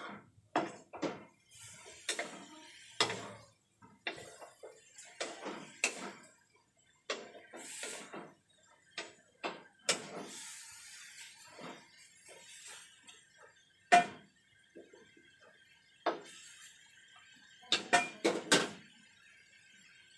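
Cooking utensils knocking and scraping against a wok and pots while pork is stirred: scattered irregular knocks and clinks, the loudest about 14 s in and a quick cluster near the end. A faint steady hiss comes in about halfway.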